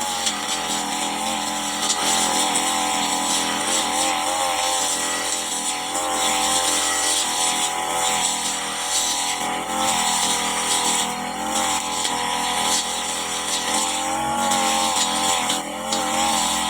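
Brush cutter's small engine running at high speed while cutting grass, its pitch wavering a little as the load changes.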